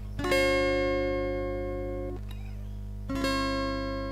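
Acoustic guitar: a chord strummed and left to ring, damped about two seconds later, then a second chord strummed and left ringing.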